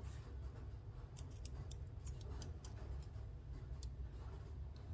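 Faint, scattered light clicks over a steady low hum, from a thin spot-welded metal test strip being handled and cut with scissors.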